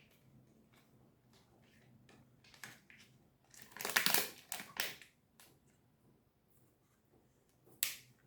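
Cheddar cheese being handled and laid onto sandwich bread: a cluster of loud crackling, rustling sounds about four to five seconds in, and one sharp click near the end.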